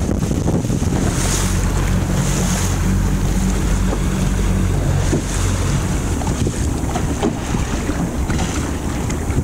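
A small boat's motor running steadily under way, its low hum clearest in the first half, with wind buffeting the microphone and water rushing along the hull.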